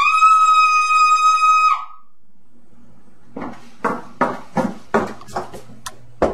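A single high-pitched scream held for nearly two seconds, dropping in pitch as it breaks off. After a short pause comes a run of knocks on a door, about two a second.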